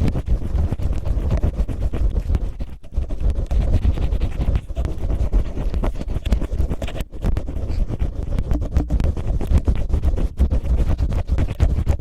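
Cellophane crinkled and rubbed right against a microphone in an ear-cleaning style: a dense, continuous crackling rustle with a heavy low rumble.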